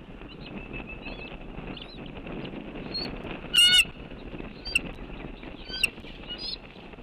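Bird calls: a loud, quick run of notes lasting about a third of a second a little past halfway, then three short single chirps, over a steady background hiss.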